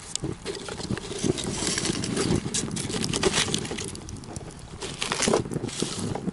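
Wood fire burning in the brick firebox of a rocket stove, crackling and popping irregularly over a steady low rushing sound.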